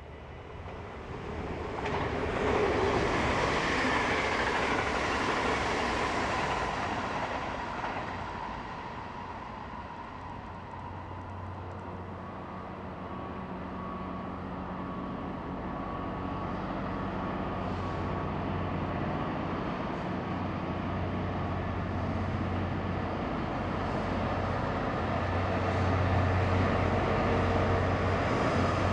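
Captrain Class 66 diesel locomotive approaching, its engine's deep steady drone building and growing louder through the second half. Early on, a broad rushing noise swells for several seconds and fades away.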